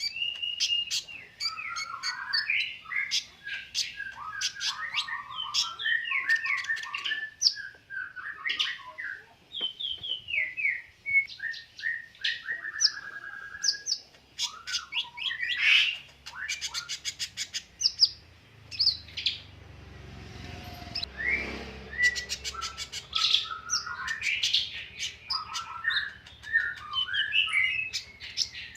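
A songbird singing continuously in full, vigorous song: a fast, varied string of chirps, whistled notes and rapid trills. A short low rumble passes about two-thirds of the way through.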